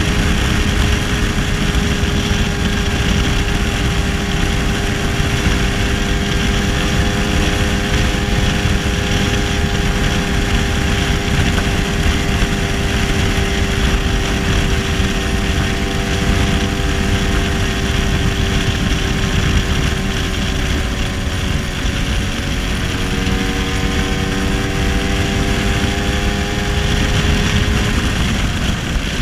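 1966 Lambretta SX scooter with a 225 Mugello two-stroke single-cylinder engine running at a steady cruising speed, its note dipping briefly and picking up again a little over twenty seconds in. Heavy wind buffeting on the microphone from riding speed.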